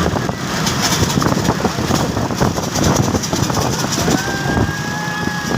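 Vehicle engines running with rattling road noise. Near the end a horn sounds, held for about a second and a half.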